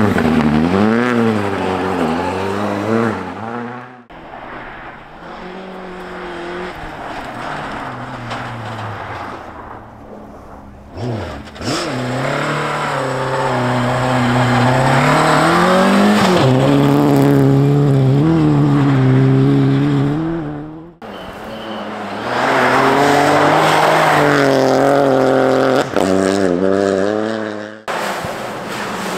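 Rally cars on snow stages, engines revving hard with the pitch rising and falling through gear changes, in several short clips joined by abrupt cuts. In the middle one a Ford Escort Mk2 rally car accelerates, its engine note climbing and then held high before dropping away.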